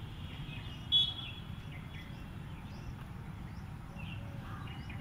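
Outdoor ambience: small birds chirping in short, scattered calls over a steady low background rumble, with one sharp, louder sound about a second in.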